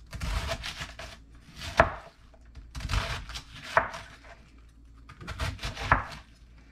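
Chef's knife slicing through a half head of green cabbage on a wooden cutting board: three cuts about two seconds apart, each a stretch of slicing sound that ends in a sharp knock of the blade on the board.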